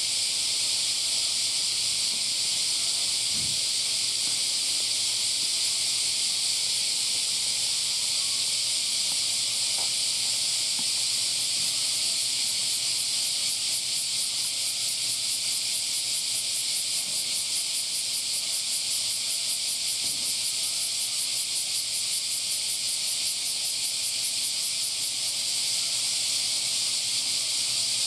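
A loud, steady, high-pitched chorus of summer cicadas, which takes on a fast pulsing from about halfway through, with a few faint crunches of a giant panda chewing bamboo beneath it.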